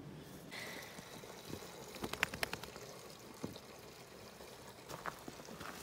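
Two-stroke premix gasoline poured from a plastic gas can into a snowmobile's fuel tank, a steady low pour, with a few sharp clicks about two seconds in.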